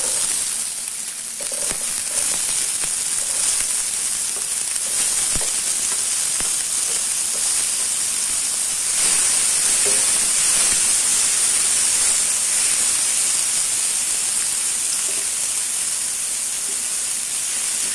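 Chopped onions hitting hot oil in a non-stick kadai and sizzling steadily as they fry; the sizzle starts suddenly as the onions go in.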